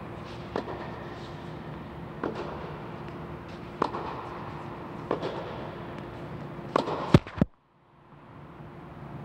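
Tennis ball struck back and forth by racquets in a rally on an indoor hard court, one sharp pop about every second and a half, each with a short echo. Near the end comes a quick cluster of three sharp knocks, the loudest of all, and then the sound cuts out for about half a second before a steady hum returns.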